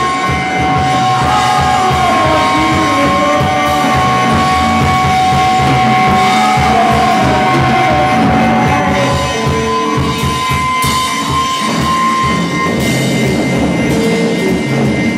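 Live band playing loud, distorted rock: bass guitar, electric guitar and drums. Steady high-pitched tones ring over the playing, with some wavering squeals, and the held tones drop out in the second half.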